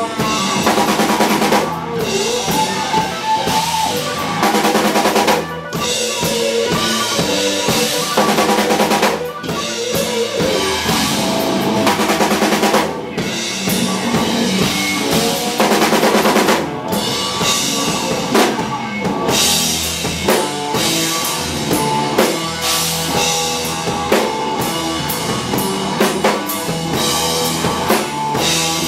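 Live rock band playing loudly, with the drum kit to the fore and a fuzz-distorted electric guitar. Loud surges come every few seconds.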